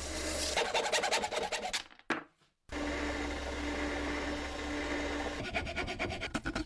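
A small electric power tool running with a steady hum, stopped by a brief silent gap about two seconds in. Runs of rapid clicking come before the gap and again near the end.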